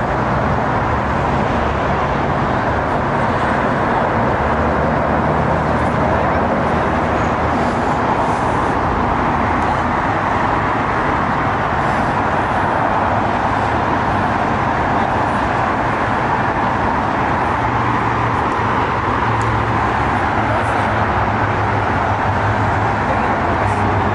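Continuous road traffic noise: an even wash of vehicle sound with a steady low engine hum underneath.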